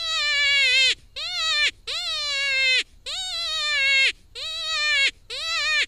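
Kenai Kryer predator distress call sounding a series of bleating cries to call in coyotes, about one a second, each rising briefly at the start and then falling in pitch.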